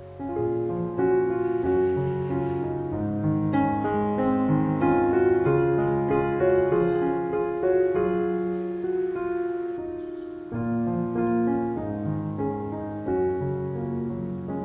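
Background piano music: a slow, gentle melody of held notes.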